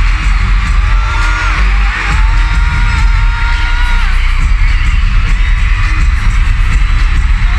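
A live pop song played loud over a concert sound system, with heavy bass and a sung melody, and audience shouts and screams mixed in.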